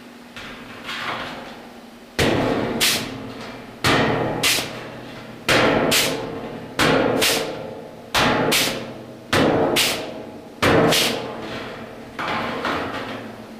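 Onyx air-powered punch and flange tool cycling on sheet metal: about nine strokes, roughly one every second and a half, starting about two seconds in, each stroke a pair of sharp clacks.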